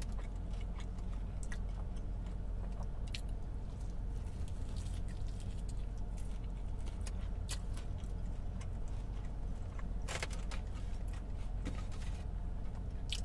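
Close-up chewing of a birria taco: wet mouth smacks and scattered sharp clicks, with a denser run of them about ten seconds in, over a steady low hum.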